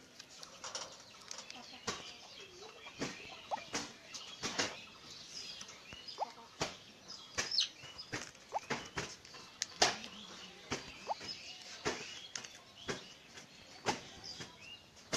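Irregular sharp clicks and taps, with faint high chirps between them.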